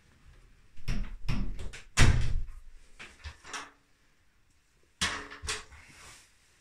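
Interior door pushed shut: a run of knocks and a latch click, the loudest bang about two seconds in. Two more clunks come about five seconds in, from the aluminium stepladder and a metal paint can being handled.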